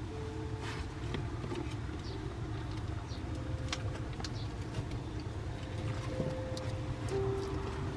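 Young puppies' claws scratching and tapping on wooden boards as they toddle, small scattered clicks over a steady low rumble. A few long, thin, steady whining tones come and go.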